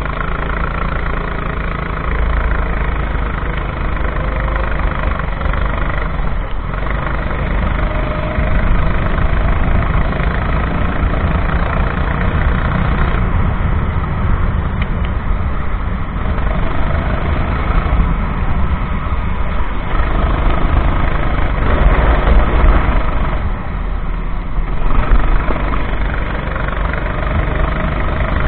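Go-kart engine running at speed, its pitch rising and falling as the kart accelerates and slows through corners, over a heavy low rumble.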